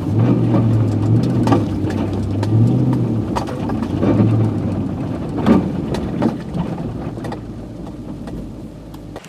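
Nissan Titan pickup's engine pulling through snow, its tone rising briefly about a third of the way in and then easing off and fading. Scattered knocks and crunches throughout.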